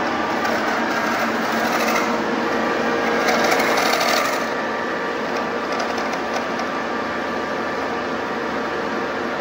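Metal lathe running steadily, with a louder, harsher stretch about a second and a half in that eases off about four seconds in.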